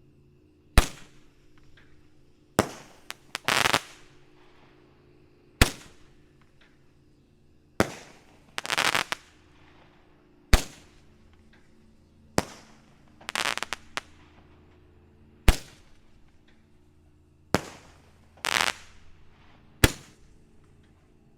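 Black Cat 'Modified Barrel' Roman candle firing about nine shots, one every two to three seconds, each a sharp pop. Four of the shots are followed about a second later by a short sputtering crackle from flying fish effects.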